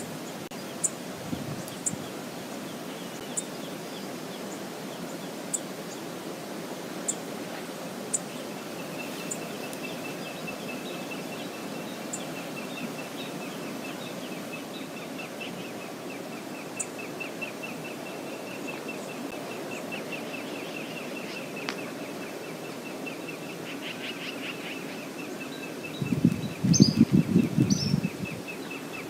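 Outdoor ambience: a steady background hiss with scattered short, high bird chips. A long, high trill runs from about nine seconds in, and a loud low rumble lasts about two seconds near the end.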